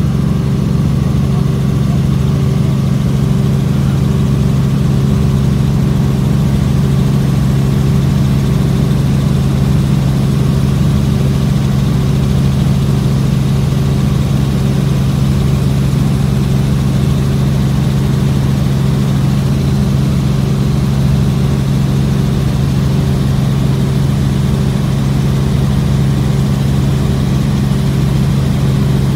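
Helicopter in flight: a loud, steady drone of rotor and engine that holds one pitch throughout.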